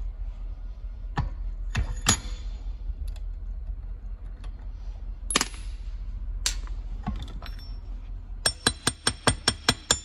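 Scattered sharp metal clicks and clinks of steel tools and aluminium suspension-linkage parts being handled at a bench vise. Near the end comes a quick run of about nine ringing metallic clinks, about six a second.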